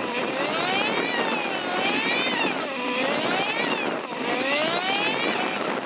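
Honda CB 125 F's single-cylinder engine running under load, its revs rising and falling smoothly about once a second, over a steady rush of wind and road noise.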